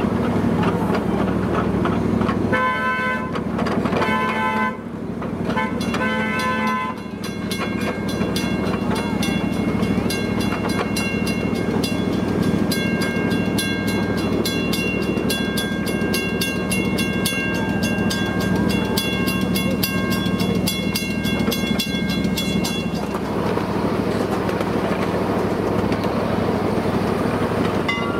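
Miniature railroad train sounding three short horn blasts, then its bell ringing steadily for about fifteen seconds, over the steady low running noise of the train.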